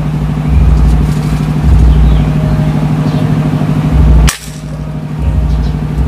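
A single air-rifle shot about four seconds in, one short sharp report, fired at a tree sparrow on the roof tiles; the shot hits and drops the bird. Beneath it, a steady low hum and rumble.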